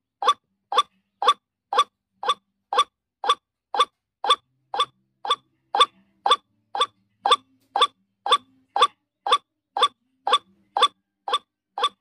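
Female white-breasted waterhen call, played as a lure to draw in wild waterhens: one short note repeated evenly, about twice a second.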